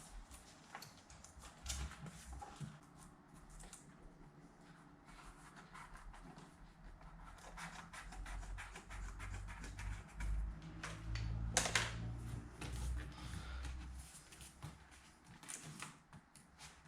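Scattered light taps, clicks and rubbing from handling a car door panel during cleaning and fitting of sound insulation, with a low rumbling stretch in the middle and one sharp click near the end.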